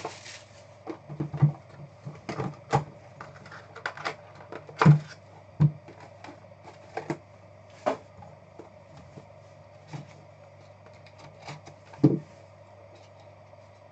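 Hands unwrapping and opening a Panini Pantheon trading card box: a brief crinkle of plastic shrink wrap at the start, then scattered taps and knocks of cardboard and plastic handled on the table. The loudest knocks come about five seconds in and just after twelve seconds, over a steady low hum.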